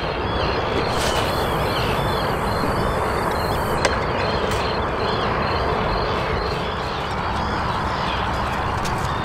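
Many small birds chirping over a steady low rush of noise.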